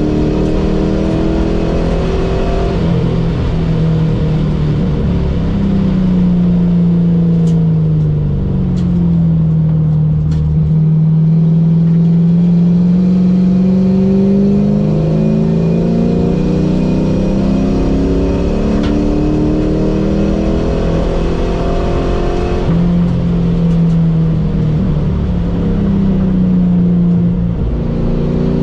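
Car engine under hard driving heard from inside the cabin. Its pitch falls under braking, climbs steadily under acceleration, and steps at a gear change about three-quarters of the way through.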